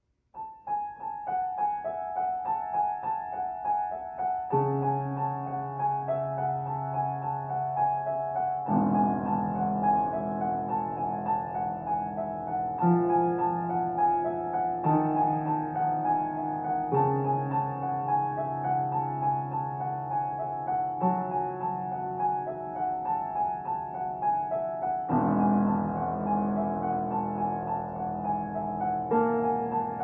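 Grand piano playing a piece that starts about half a second in with quick repeated high notes; lower notes join about four seconds later and the texture fills out with bass chords around nine seconds in.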